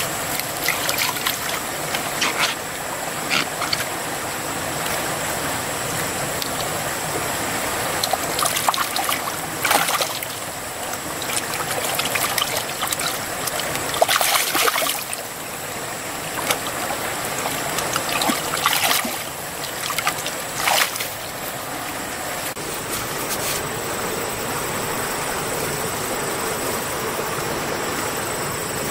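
Steady rush of flowing river water, with splashes and wet squelches every few seconds as hands scoop and dig in a muddy, water-filled hole.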